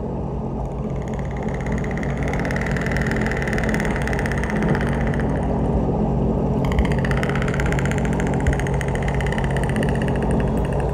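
Jet ski engine idling steadily, with a higher whine that comes and goes over it.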